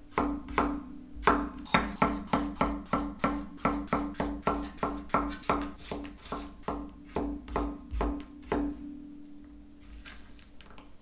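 Chef's knife slicing a red bell pepper into strips on a wooden cutting board: a steady run of chops, about three to four a second, that stops about eight and a half seconds in.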